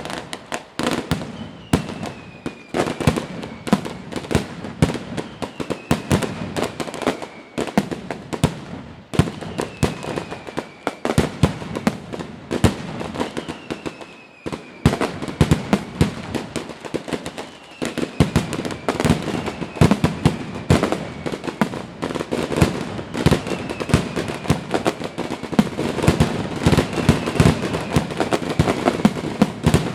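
Fireworks display: a dense, continuous run of sharp bangs and pops from aerial shells, with a high whistle falling in pitch that comes back every couple of seconds.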